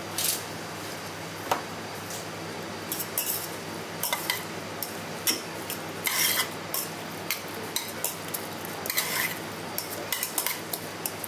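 Metal spoon stirring and scraping chopped raw beef and a tomato sauce in a small stainless steel bowl: irregular clinks and scrapes against the metal, over a steady background hum.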